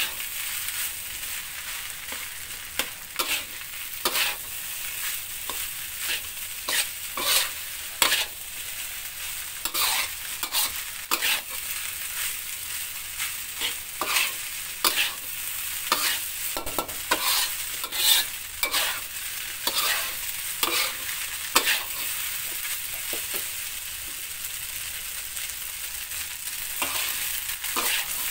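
Fried rice sizzling in a metal wok while being stir-fried: a steady high hiss, broken about once a second by scrapes and knocks of a metal spatula against the pan.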